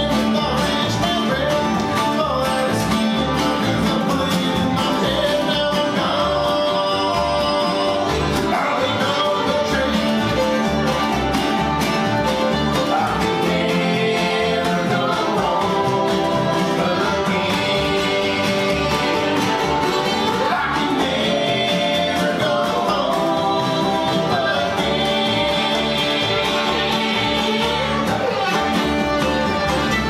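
A bluegrass band playing live: acoustic guitars, banjo, fiddle and upright bass, with a steady driving rhythm and sliding melodic lines over it.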